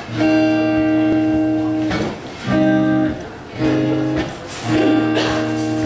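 Acoustic guitar strumming chords in a song's intro, each chord ringing for one to two seconds before the next.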